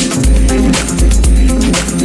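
Electronic dance music with a heavy, steady bass beat and regular hi-hats.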